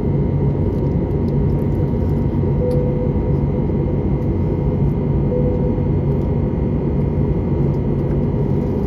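Cabin noise of an Airbus A321neo in flight, heard beside the wing engine: a steady, even rumble of engines and airflow with a faint steady whine above it.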